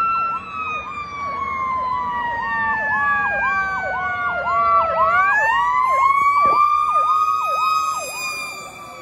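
Fire apparatus sirens sounding together. One is a fast electronic yelp, about two and a half sweeps a second, which stops about eight seconds in. The other is a wail that falls slowly for about five seconds and then rises again, and it is fading near the end.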